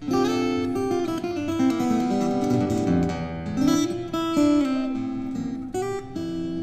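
Acoustic guitar played fingerstyle: a chord comes in all at once, then picked melody notes over ringing chords and a bass line.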